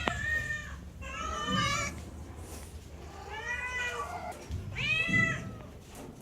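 Domestic cat meowing: four drawn-out meows, each rising and then falling in pitch.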